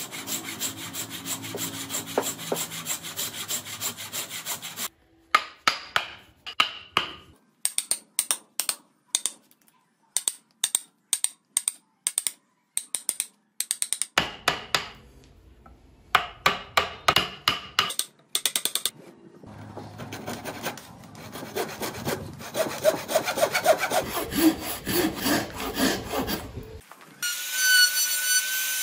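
A handsaw cutting into a solid wood block in quick strokes, then a wooden mallet driving a chisel into the wood in sharp separate blows, some in fast runs. Near the end an electric trim router starts up with a steady high whine.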